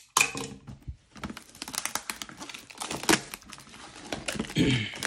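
Packaging crinkling and tearing as a sealed trading-card display box is opened by hand: irregular rustles and sharp snaps, one louder about three seconds in.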